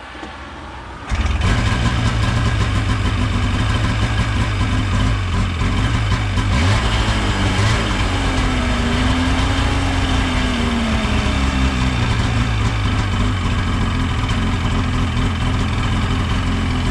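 Ski-Doo 550F fan-cooled two-stroke twin snowmobile engine starting about a second in, on its first start after a cylinder rebuild, then running and idling steadily.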